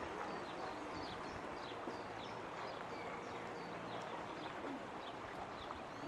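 Small birds chirping over and over, short high calls several times a second, above the steady sound of a stream flowing.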